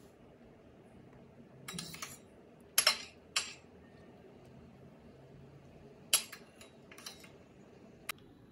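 A metal spoon clinking lightly against a ceramic plate a handful of times, short sharp clinks spread out over the stretch, as cream is spooned over the dish.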